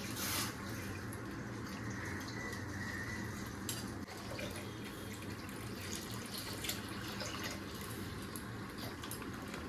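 Milk pouring from a plastic milk packet into a stainless steel kadai, a steady liquid trickle and splash, with a few faint clicks.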